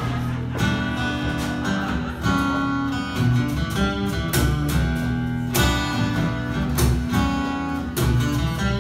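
Acoustic guitar strumming over a steady electric bass line, an instrumental passage of a live song with no voice.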